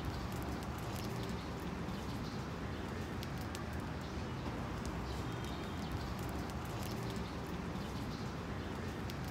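Outdoor ambience: a steady low rumble and hiss with faint, scattered bird chirps and small ticks.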